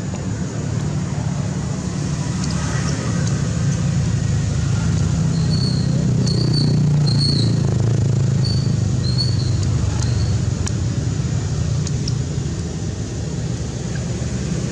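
A steady low engine rumble, like a motor vehicle running nearby, swelling and shifting in pitch around the middle. A series of short high chirps comes partway through.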